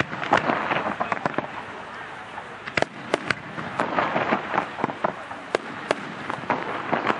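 Fireworks display going off: irregular sharp bangs and pops, several a second at times.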